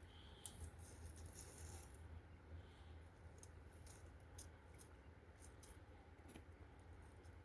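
Near silence: a faint low hum with scattered small clicks and light rattles, most of them about half a second to two seconds in.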